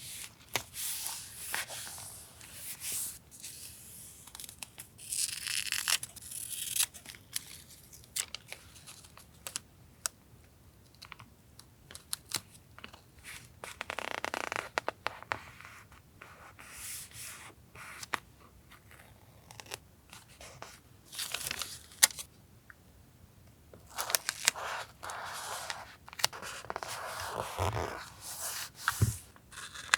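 Paper being handled for a collage: repeated short bouts of tearing and rustling paper, with many small taps and clicks in between.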